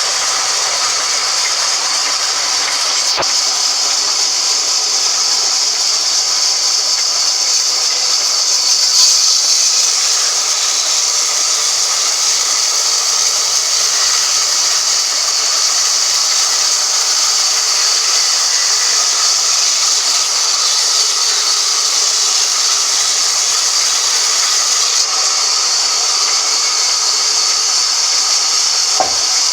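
Band sawmill running, a steady high-pitched hiss with a faint click about three seconds in and another near the end.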